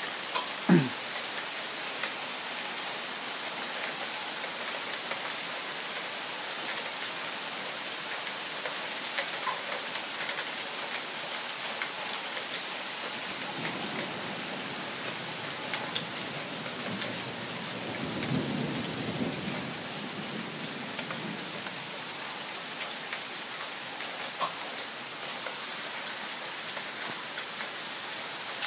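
Hail and rain falling steadily on roofs, pavement and foliage, an even hiss with scattered sharp ticks of hailstones. There is a single loud thump about a second in, and a low rumble that swells and fades about two-thirds of the way through.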